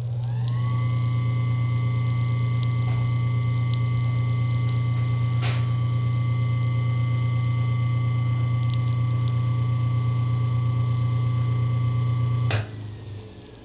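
Antique 'pancake' electric fan motor running with a strong low mains hum, its whine rising over the first second as it comes up to speed and then holding steady. About twelve and a half seconds in there is a click, the hum cuts off and the whine falls away as the motor coasts down after being switched off.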